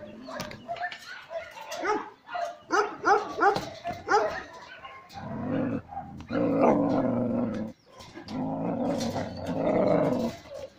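Young dogs yipping and barking in quick, short calls for the first few seconds, then two long, low growls, each lasting about two seconds.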